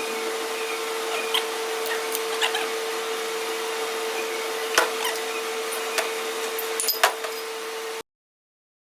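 Steady mechanical drone with a constant hum, broken by a few light clicks and knocks as parts are handled during the strip-down of a radial piston hydraulic motor. The sound cuts out completely near the end.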